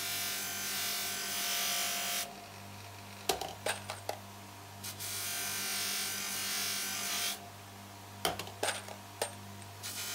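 Bench grinder fitted with a buffing wheel running with a steady hum, while a small brass key pilot (capstan screw) is pressed against the spinning wheel to polish it. Twice, for about two and a half seconds each, the contact adds a loud rushing hiss, and a few light clicks come in between.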